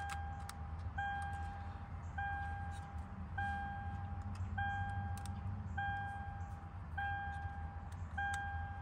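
The Toyota 4Runner's interior warning chime beeps over and over, about once every 1.2 seconds, each beep lasting nearly a second. A few light plastic clicks come from wiring connectors being handled and plugged in.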